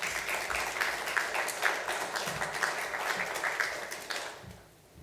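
Audience applauding: many hands clapping together, fading out about four seconds in.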